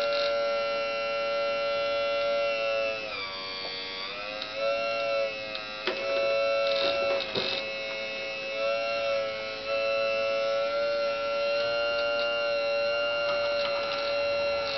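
Radio-controlled scale excavator's hydraulic pump motor whining steadily, its pitch sagging for a moment a few seconds in, with a few short knocks about halfway through.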